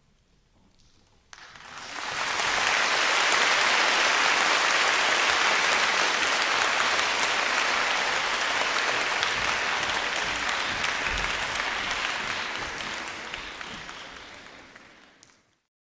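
Audience applauding: after a brief hush the clapping starts abruptly about a second in, swells quickly to a steady level, then fades away and cuts off near the end.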